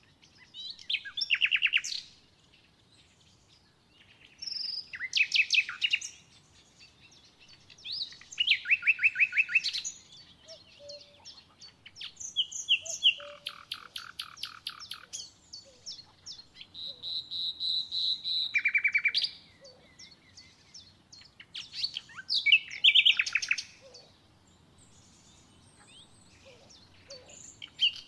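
A songbird singing: short phrases of fast trills and chirps, each a second or two long, repeated about every four seconds.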